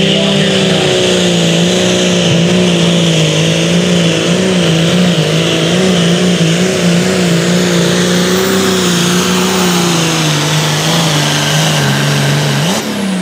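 New Holland light limited super stock pulling tractor's diesel engine running flat out under load, its pitch wavering up and down throughout. It sags a little in pitch toward the end, then gives a quick rise and fall just before the end.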